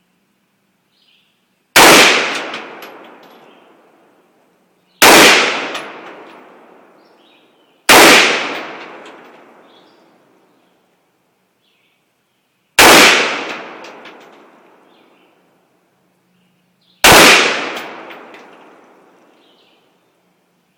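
AR-15 rifle fired five single shots at uneven intervals, a few seconds apart, each with a sharp crack and an echo that trails off over about two seconds.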